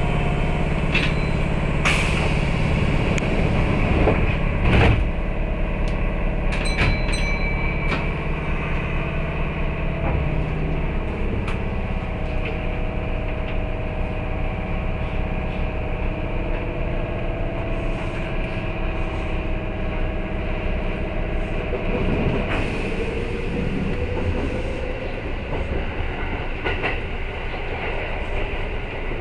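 Kintetsu 8600-series electric train running, heard from inside the train: steady motor hum and running noise with a few sharp clicks in the first several seconds. The motor's tone shifts about three-quarters of the way through.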